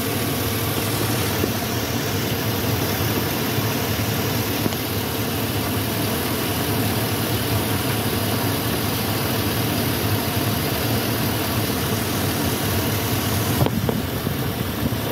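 GM 5.3-litre V8 idling steadily, heard up close through its open oil filler neck, with the valvetrain working inside. The rockers are well oiled.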